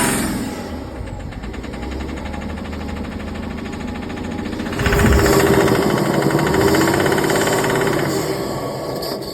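Diesel engine running with a rhythmic knock, revved up about five seconds in. The knock sets in with the suspect injector connected, and the question is whether it comes from the injector or a bearing.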